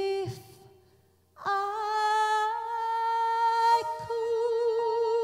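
A woman singing a slow ballad into a microphone: a short sung word, a brief pause, then a long held note with vibrato that moves to a second held note near the end.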